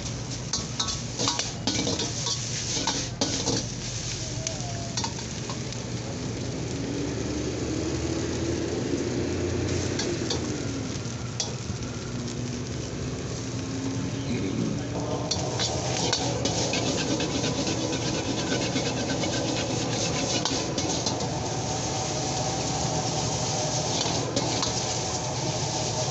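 A metal ladle scrapes and clanks against a steel wok while noodles and cabbage sizzle, being stir-fried. The sizzling grows louder and busier about halfway through, as a dark sauce goes into the wok.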